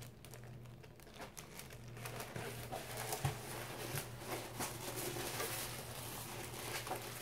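Cardboard box and its paper packing being handled and opened, with light crinkling rustles and small irregular taps and clicks.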